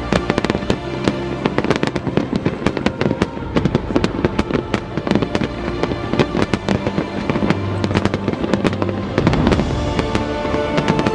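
A fireworks display with many shells bursting in quick succession, sharp bangs and crackles throughout, over music with held notes.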